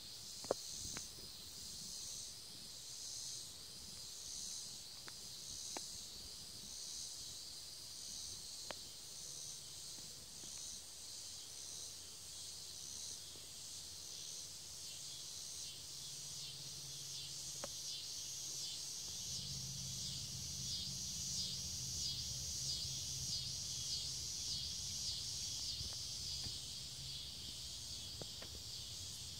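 A chorus of insects calls in high-pitched, evenly repeating pulses about twice a second, growing denser later on. A low hum comes in about two-thirds of the way through.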